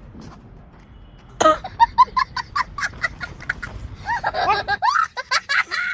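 Domestic fowl cackling and honking in a rapid run of short calls, starting suddenly about a second and a half in after a quiet start.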